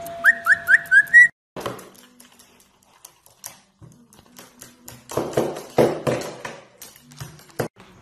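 White-bellied caique whistling four short rising notes in quick succession. About a second in they stop abruptly, giving way to scattered clicks, taps and short scuffling noises, loudest around five to six seconds in, with a last sharp click near the end.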